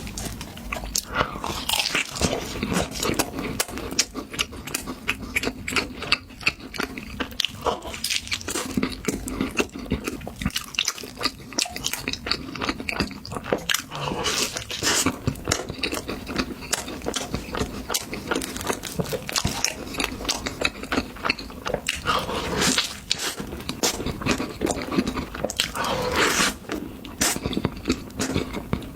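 Close-miked eating: chewing and biting of soft pastry, with a steady stream of quick, wet, sticky mouth clicks and smacks.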